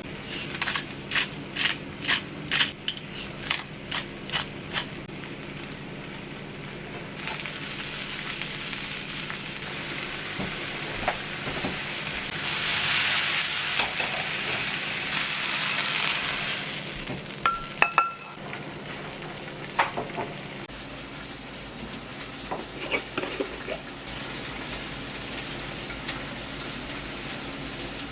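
Kitchen cooking sounds: a run of regular sharp taps at about two a second, then food frying with a sizzling hiss that swells and fades. Two short electronic beeps come just after the hiss, followed by scattered light clicks of utensils.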